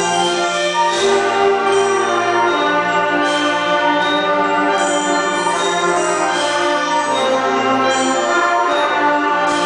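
Youth orchestra of strings, woodwinds and brass playing held chords that shift every second or so, with the brass prominent.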